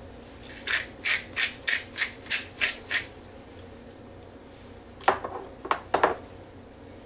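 Hand-twisted pepper grinder grinding pepper over a bowl: about eight quick rasping twists, roughly four a second. A few more scraping clicks follow about five seconds in.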